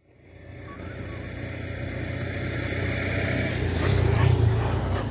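An engine running steadily with a low hum, fading in from silence and growing louder, loudest about four seconds in.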